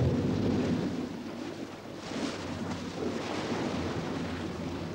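Motorboat under way at sea: a steady low engine rumble with water rushing along the hull and wind on the microphone.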